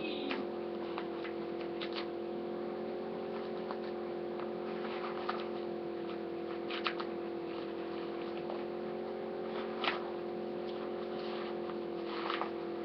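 A steady hum of several even tones, with occasional soft clicks and rustles of objects being handled, the sharpest click about ten seconds in.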